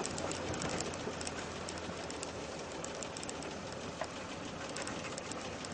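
Off-road vehicle driving slowly over a rutted dirt track: a steady low engine hum under tyre and road noise, with many small rattles and knocks from the vehicle jolting over the bumps.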